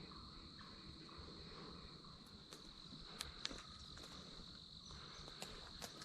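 Insects trilling in a steady, high-pitched chorus, with a few faint sharp clicks from about two seconds in.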